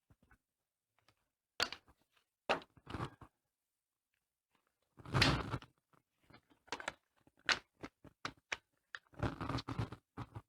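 Corrugated polyethylene panels being handled and flexed: a series of irregular knocks, clacks and plastic rattles, the loudest about five seconds in and a quick run of them near the end.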